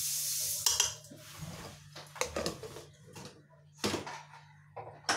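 Metal spoon and cookware clinking: a handful of separate sharp knocks and clinks against the aluminium pressure cooker and dishes, the loudest just under a second in, near four seconds and at the very end. A hiss fades out in the first moment.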